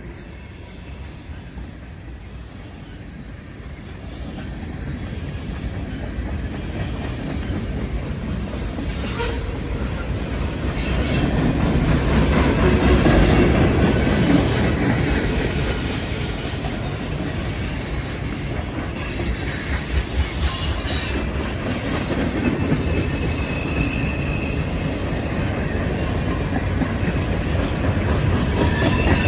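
Mixed manifest freight train cars rolling past close by: a steady rumble of wheels on rail that grows louder from about four seconds in and peaks around the middle, with bouts of clattering and a short high-pitched wheel squeal later on.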